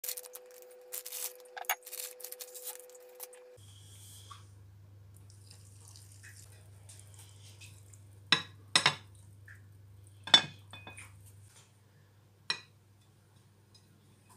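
Ceramic bowl being handled on a countertop: a run of light clicks in the first few seconds, then a few sharp clinks and knocks of china, the loudest a little past halfway.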